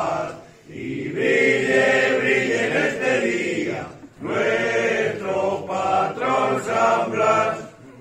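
A group of voices singing a traditional aurora, a dawn hymn to the patron saint San Blas, together in long sung phrases. The singing breaks off briefly about half a second in and again near four seconds in, and a new phrase begins each time.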